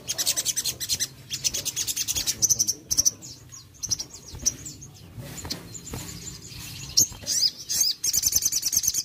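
Male sunbird (sogon) singing fast, high-pitched trills of rapidly repeated chirps. The song comes in dense bursts over the first three seconds and again near the end, with scattered chirps between.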